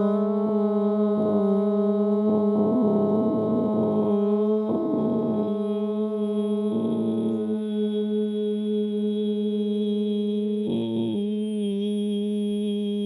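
Voices sustaining one steady pitch in a long unison drone, the chanted note held without a break and slowly fading.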